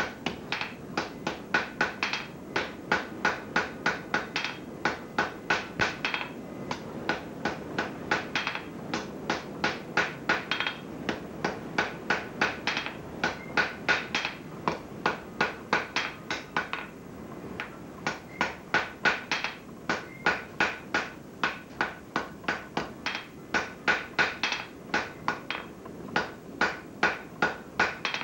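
Blacksmith's hand hammer striking red-hot steel on an anvil, a steady run of blows at about two to three a second, each with a bright ring, with a short pause about two-thirds of the way through. This is the hammering of a forge weld joining a twisted handle to a shaft.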